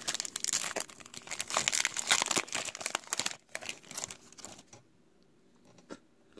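Foil wrapper of a Topps WWE Raw trading-card pack being torn open and crinkled by hand, a dense crackling that stops about four and a half seconds in.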